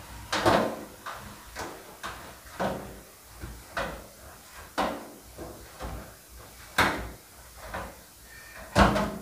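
Malunggay pandesal dough being kneaded by hand on a work table: a string of dull thuds roughly once a second as the dough is worked against the table.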